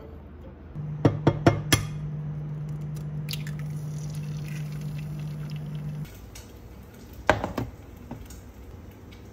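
A few sharp clicks, then a steady low electrical hum from a kitchen appliance for about five seconds, which stops abruptly. A clatter of dishes follows near the end.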